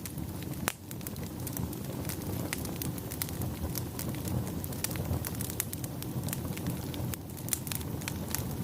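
Wood fire burning, with many irregular sharp crackles and pops over a steady low rumble.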